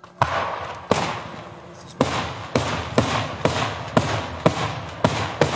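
Daytime aerial fireworks shells bursting in a rapid series: about ten loud bangs, coming roughly two a second after the first couple, each trailing off in an echo.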